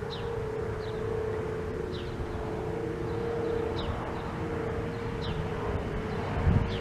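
Thunderbolt 1000T outdoor warning siren sounding its steady alert tone, a single held pitch that swells and fades slightly as the siren head rotates at 8 RPM. Low wind rumble sits under it.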